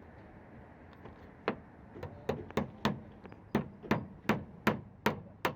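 A series of sharp knocks, about ten in a row, starting about a second and a half in, at roughly three a second with a short pause midway.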